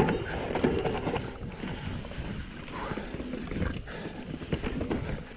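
Enduro mountain bike descending a dirt trail: tyres rumbling over the loam, the bike rattling and clattering over bumps, with wind buffeting the microphone.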